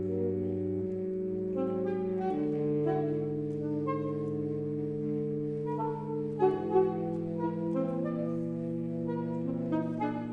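Saxophone quartet of soprano, alto, tenor and baritone saxophones playing held chords, long low notes sustained under shifting upper notes, with a couple of short accented notes about six and a half seconds in.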